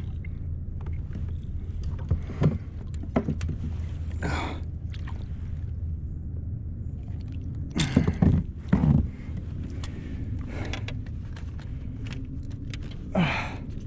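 Large speckled trout splashing and thrashing at the surface beside a kayak as it is gripped and lifted aboard, with a few short splashes and knocks, the loudest about eight and nine seconds in, over a steady low rumble.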